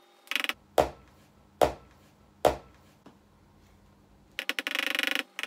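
Push-down spinning whisk working through butter and icing sugar in a bowl: a short rattle, then three separate clacks about a second apart, then a longer buzzing rattle near the end.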